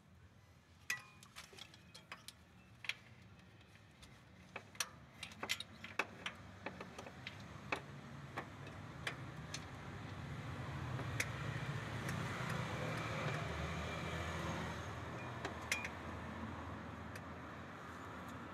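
Faint, irregular metallic clicks and clinks of hand tools and bolts being handled on the transmission bolts of a car. A low hum builds in the second half.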